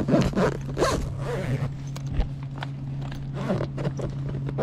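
Large coil zipper on a fabric tool backpack being pulled shut in several short strokes, closing the main compartment. A steady low hum runs underneath.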